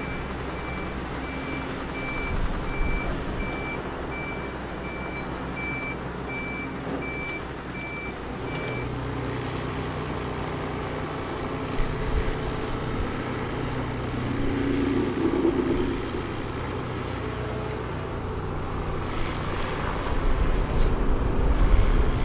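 A construction vehicle's reversing alarm beeps about once a second and stops about nine seconds in, over the steady rumble of a heavy machine's diesel engine.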